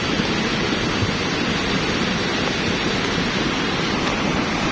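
Lahar, a swift flood of grey volcanic mud, sand and rock, rushing down a river channel with a steady, even noise.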